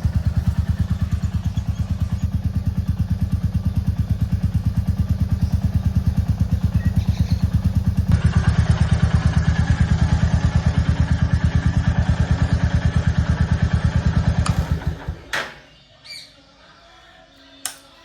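Royal Enfield Classic 350's 349 cc single-cylinder air-cooled engine idling with an even thump while warming up after a cold start. It shuts off about fifteen seconds in, followed by a few light clicks.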